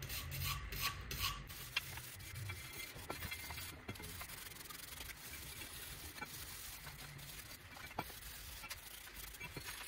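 Hand wire brush scrubbing rust and dirt off a Mitsubishi Lancer's front brake caliper bracket: quick back-and-forth scratching strokes, strongest in the first second or so, then lighter scratching with a few sharp clicks.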